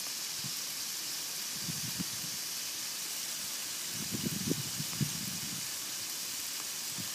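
Garden hose nozzle spraying a fine mist onto plants, a steady hiss, with soft low rustles about two seconds in and again around four to five seconds in.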